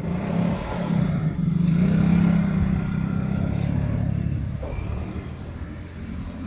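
A motor vehicle's engine passing close by, running at a steady pitch. It grows louder to about two seconds in, then fades away after about four seconds.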